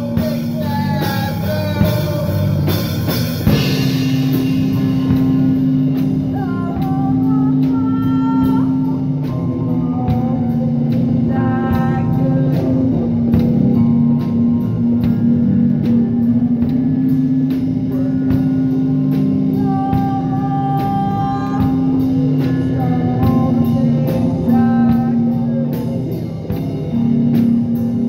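Live rock band playing: drum kit, electric guitar and a singing voice over a steady low held note, with heavy cymbal wash in the first few seconds.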